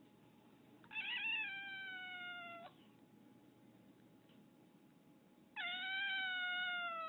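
Domestic cat meowing twice: two long, drawn-out meows, each slowly falling in pitch. The first comes about a second in, and the second starts near the end.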